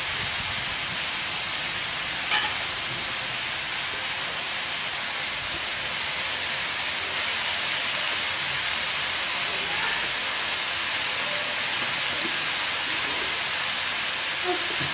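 Diced pork and chopped greens frying in oil in a steel wok: a steady sizzling hiss, with one sharp tap about two seconds in.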